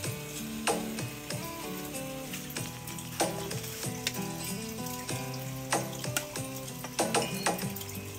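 Food frying and sizzling in a pan, with irregular sharp knocks of a utensil stirring against it. Instrumental background music plays throughout.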